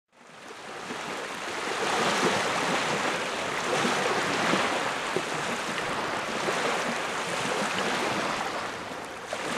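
Small lake waves lapping and breaking on a sandy shore, a steady wash of surf that fades in over the first second or two.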